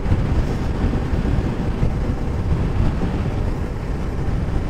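TVS Apache RR 310 motorcycle cruising along the highway: a steady low rumble of wind buffeting the microphone, mixed with engine and road noise.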